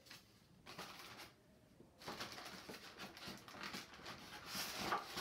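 Rustling and handling noise as the takedown barrel section of a Ruger PC Carbine is turned over in the hands, with packing plastic rustling; loudest near the end.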